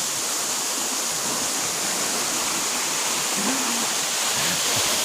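Steady rushing of a stream's flowing water, an even hiss with no break.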